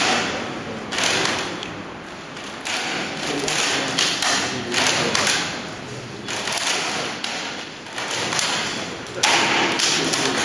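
Irregular thuds and taps from two timber shear walls being pushed sideways by a jack under a load of more than 20 kilonewtons, with a sudden louder burst about nine seconds in.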